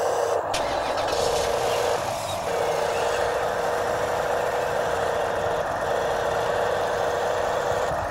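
Huina 1593 radio-controlled excavators and a radio-controlled Volvo A40G articulated dump truck running, giving a loud, steady mechanical whirring that dips briefly a few times.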